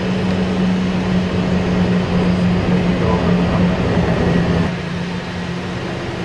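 Cockpit noise of a Cessna Citation 501 on final approach: a steady rush of airflow and its twin Pratt & Whitney JT15D turbofans, with a steady low hum. The level drops a little about three-quarters of the way through.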